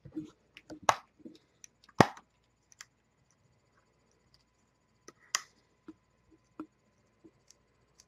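Scattered small clicks and knocks of a laptop hard drive and its plastic connector being handled and worked loose, the two sharpest about one and two seconds in, then lighter ticks.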